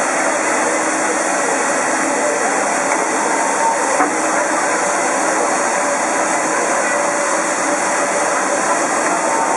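Standing DR class 65.10 steam tank locomotive giving off a steady hiss of steam.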